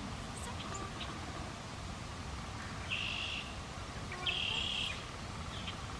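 A bird calling twice, two short harsh calls about a second and a half apart, with a few faint chirps, over steady low background noise.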